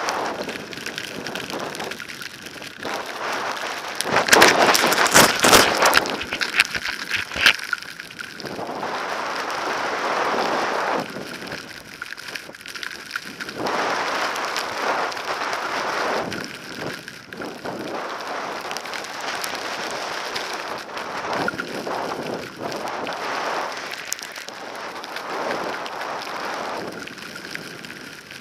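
Blizzard wind buffeting the microphone in gusts, loudest from about four to eight seconds in, over the hiss and scrape of skis on snow.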